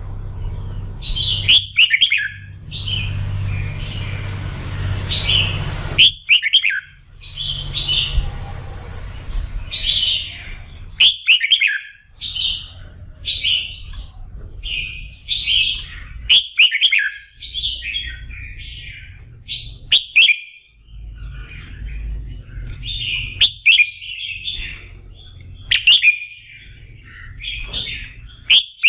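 Red-whiskered bulbul singing in an excited, fired-up way, the kind of song used to spur competition birds. Short whistled phrases repeat every second or so, with a sharp note every few seconds and a low background rumble underneath.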